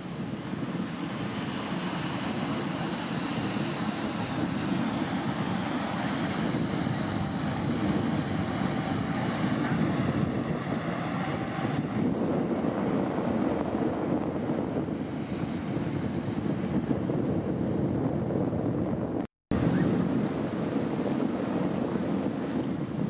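Wind blowing across the microphone on an open riverbank, a steady low rumbling hiss. It cuts out for a moment about nineteen seconds in, then carries on.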